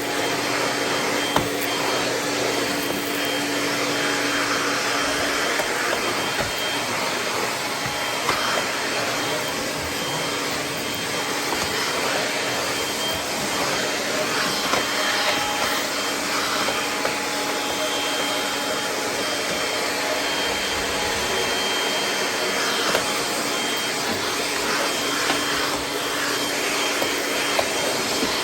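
Kirby G6 upright vacuum running steadily while picking up pine needles, with a few short sharp ticks.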